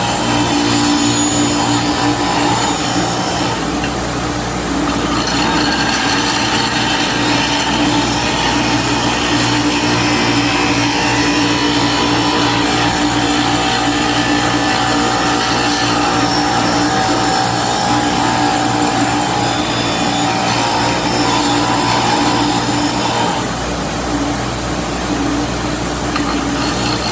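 Bench grinder running steadily with its motor hum, as a cast-iron drill press part is held against the wheel to grind off casting dross.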